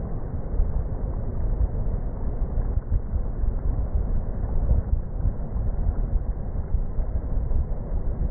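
Wind buffeting the microphone: a steady low rumble that swells and dips in gusts.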